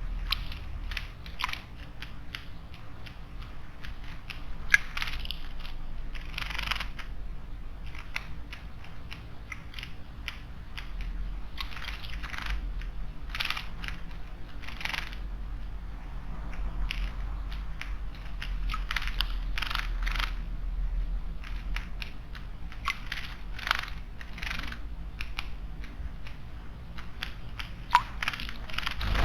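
Small wild birds splashing at a stone garden water basin: repeated short, irregular bursts of splashing and wing-fluttering over a steady low rumble.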